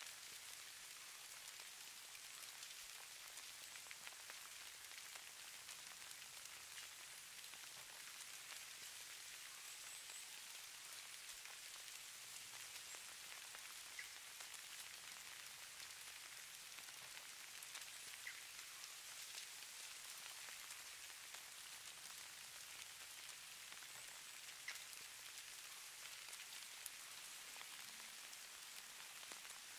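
Faint, steady patter of light falling precipitation on a surface, offered as falling snow: a fine, even hiss with scattered tiny ticks.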